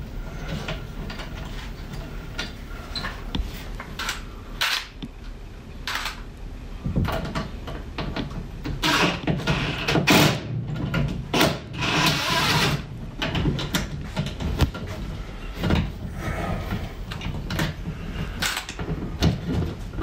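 Clicks and knocks of hands working a metal cable clamp in a ceiling electrical box, then a cordless driver running in short bursts, loudest about nine and twelve seconds in, to tighten the clamp screw on the cable.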